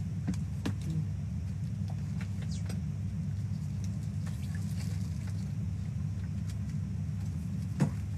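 Steady low hum of a window-type air conditioner running, with scattered light clicks and one sharper click near the end.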